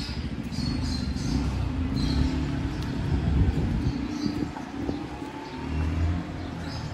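A motor vehicle's engine rumbling as it passes close by, building to its loudest a little past the middle and then fading, with a few short bird chirps.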